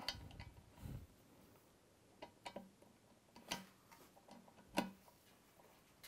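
Faint, irregular clicks and taps of a metal tap spanner being slid onto and seated on the tap's back nut under a ceramic basin, about half a dozen in all.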